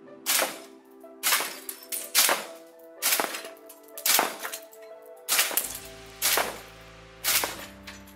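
Tokyo Marui SAIGA-12K gas blowback airsoft shotgun fired semi-automatically eight times, about once a second. Each shot is a sharp gas report with the bolt cycling, throwing three BBs at a time. Background music plays underneath.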